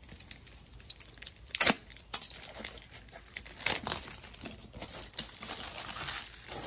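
Clear plastic shrink-wrap being torn and peeled off a toy box by hand, crinkling irregularly, with two sharp louder crackles about two seconds in.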